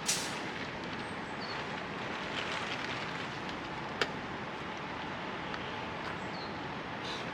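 Steady rushing outdoor background noise, with a sharp click about four seconds in and brief rustles near the start and end.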